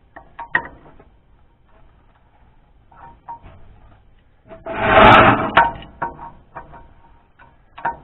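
Scattered light metallic clicks and clinks of tools and parts being handled during work on a tractor's rear end, with one loud rushing, scraping noise about a second long about five seconds in.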